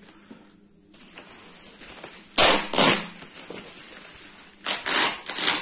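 Packing tape and bubble-wrap plastic being torn open on a parcel: two loud ripping tears about two and a half seconds in, then three more in quick succession near the end.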